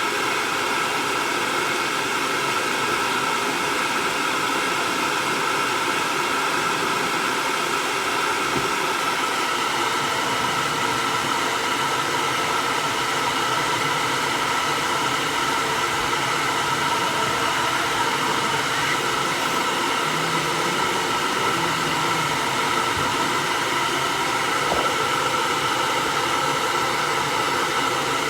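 Hair dryer running steadily on a cat's coat: a constant rush of blown air with a steady motor whine.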